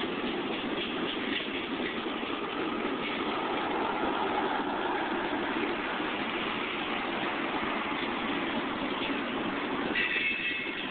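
Freight train of tank cars rolling steadily past, its wheels rumbling on the rails. A brief high squeal joins in near the end.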